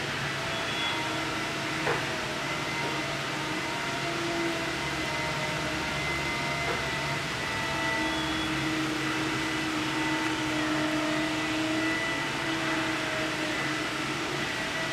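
Battery-electric Raymond swing reach truck running as it drives and turns: a steady electric motor hum made up of several even tones over a noise bed, with a single click about two seconds in.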